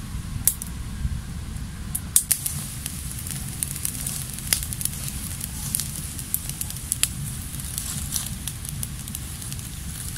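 Small fire of dry grass and twigs crackling, with sharp irregular pops scattered throughout, over a low steady rumble.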